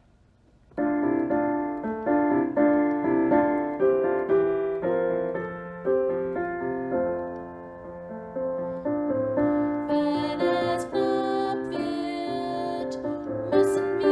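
Piano playing the introduction of a church song, starting about a second in; a singing voice joins about ten seconds in.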